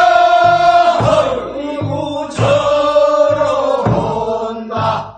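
Korean folk work song for weeding rice paddies (non maeneun sori), sung for the second weeding: singing voices chanting long, drawn-out notes.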